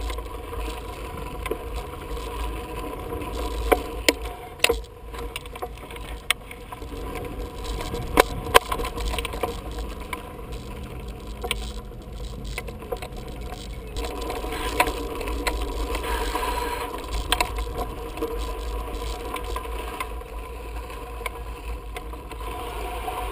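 Wind buffeting the microphone and bicycles rattling as they roll over dirt jumps, with several sharp knocks over the bumps.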